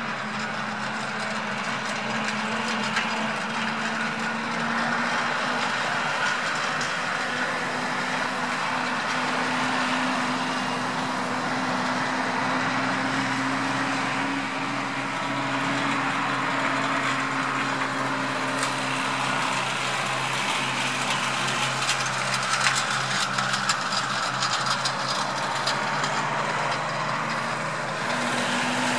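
A steady engine hum, like a vehicle or machine idling, its pitch drifting slightly, over a constant rushing noise, with a scatter of sharp clicks a little past the middle.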